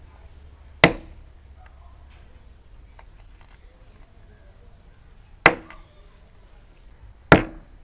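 Small hammer tapping a nitrous oxide cracker to pierce the gas cartridge: three sharp knocks, one about a second in and two more a couple of seconds apart near the end.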